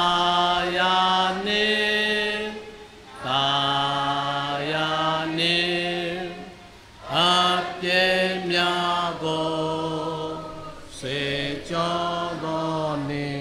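Congregation singing a slow hymn in long held notes, phrase by phrase, with short pauses between phrases.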